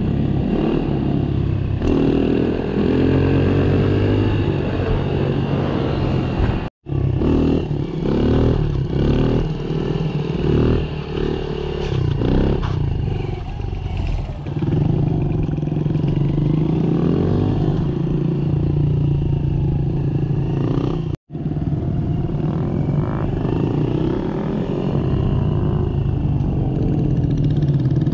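Small-bore motorcycle engines running and revving, their pitch rising and falling. The sound drops out abruptly twice, for a split second each time.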